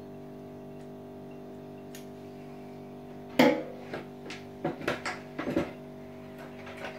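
A drill running at a steady, unchanging pitch. From about halfway through comes a run of sharp knocks, the first the loudest.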